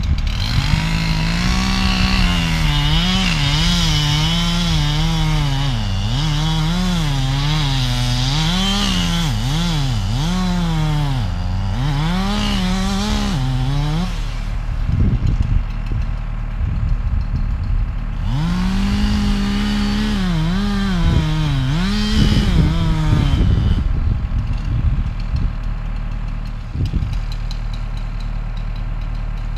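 Chainsaw cutting through a dead ash trunk, its engine pitch rising and sagging as it loads up in the cut. It runs in two long bursts with a break of a few seconds between them, over a steady low engine hum that carries on after the saw stops.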